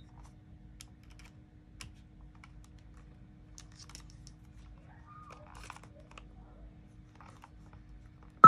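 Faint scattered clicks of a Sony WMT-DT1 DAT player's case and a 3.5 mm headphone plug being handled, over a low steady hum. Near the end comes one short, loud blip as the player's play button is pressed.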